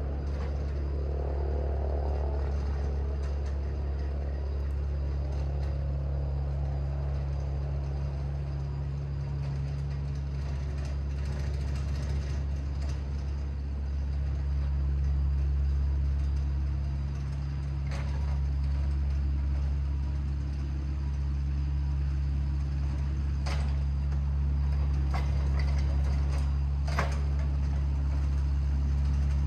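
Steady low drone at a fixed pitch, like a vehicle running at a constant speed, with a few faint clicks in the second half.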